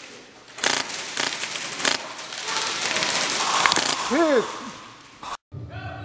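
Rattling and clattering of an airsoft rifle and kit as the player moves fast, with a few sharp knocks in the first two seconds and a short rising-and-falling squeak about four seconds in. The sound cuts off abruptly shortly before the end.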